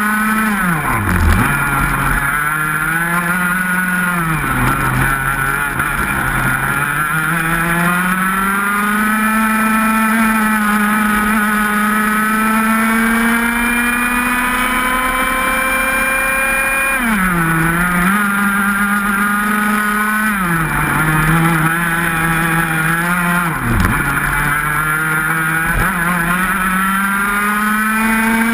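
Onboard sound of a 125 cc two-stroke racing kart engine at racing speed. Its pitch climbs steadily along the straights, with one long climb in the middle, and drops sharply about five times as the kart slows for corners, then climbs again.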